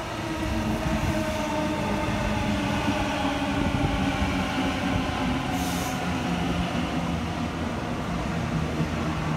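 A Sydney Tangara double-deck electric train passes close by, its wheels rumbling on the rails while the motors give a steady whine. The sound grows louder at the start as the train comes near, and a short high hiss comes about halfway through.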